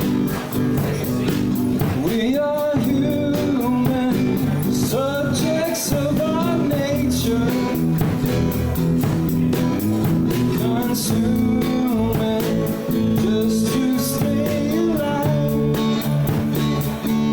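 A live band playing a song: guitar with a sung vocal line coming in about two seconds in, over a steady beat.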